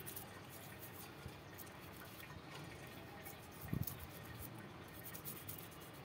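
Toothbrush bristles scrubbing a small turtle's shell in quick, faint scratchy strokes, with one dull low thump a little before four seconds in.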